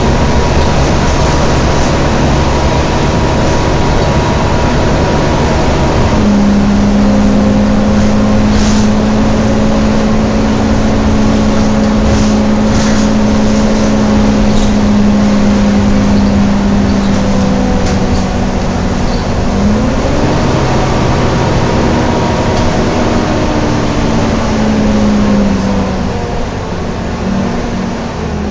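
A Volvo B9TL bus's engine cooling fan whining over the running engine, heard inside the bus while it is under way. A strong steady whining hum sets in abruptly about six seconds in, a second tone rises in pitch about twenty seconds in, and the sound eases off near the end.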